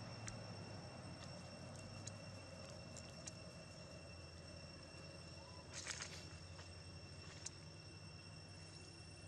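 Faint outdoor ambience: a steady, high insect drone in two even tones, with scattered light ticks and a brief rustle about six seconds in.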